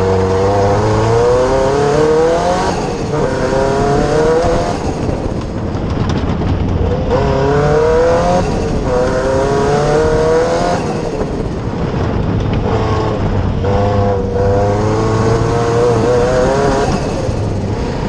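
Fiesta Proto Cosworth off-road racer's engine heard from inside the cockpit, revving hard and climbing in pitch, then dropping briefly at each gear change, about five or six times.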